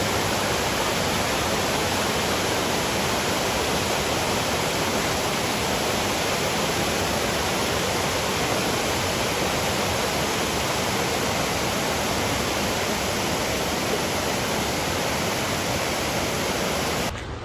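Rushing water of a mountain gorge stream swollen by heavy rain: a steady, dense torrent that cuts off suddenly near the end.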